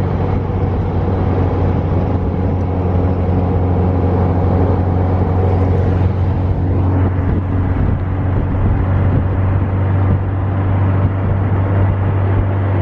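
Dune buggy engine running steadily while driving, a constant low hum with road and wind noise over it.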